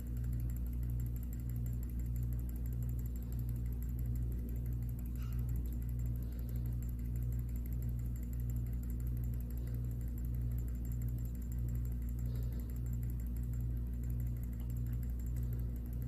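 Steady low mechanical hum of running lab equipment, with a regular pulsing about twice a second.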